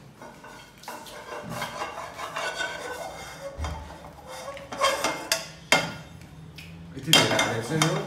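Metal spoon and utensils clinking and scraping against spice jars, steel bowls and a wok, with a few sharp clinks about five seconds in and a loud ringing clank near the end.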